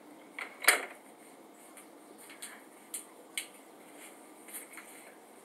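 A handful of faint, sharp clicks and taps, scattered irregularly over quiet room noise. The loudest comes just under a second in.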